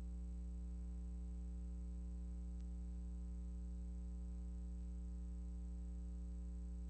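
Steady low electrical hum with a faint, thin high whine above it.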